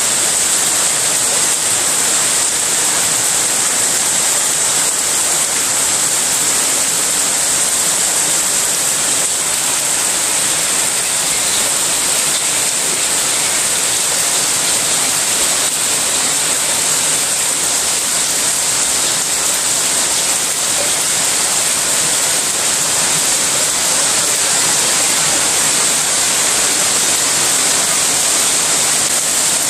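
Heavy rain pouring steadily onto brick-tiled paving and walls: a dense, even hiss with no let-up.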